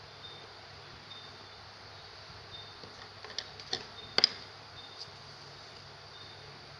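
A wooden pencil handled and set down on a notebook page: a few light clicks and taps, the loudest two in quick succession about four seconds in, over a steady hiss.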